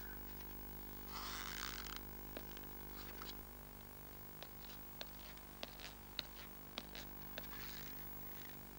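Faint steady electrical hum, with scattered soft clicks and two short rustling scrapes, one about a second in and one near the end.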